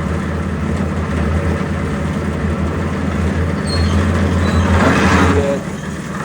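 Engine-driven concrete mixer running steadily with its drum churning. About four and a half seconds in, a loud rushing noise swells for about a second as wet concrete is tipped out of the turned drum, and then the running note drops.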